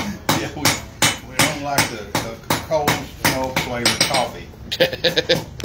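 Blacksmith's hammer striking hot iron on an anvil in a steady rhythm of about three blows a second. Near the end it breaks into a quicker run of lighter taps that ring on the anvil.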